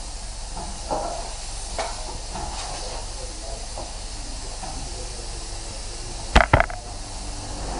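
Steady hiss of workshop background noise, with a few faint knocks early and two sharp knocks close together about six and a half seconds in.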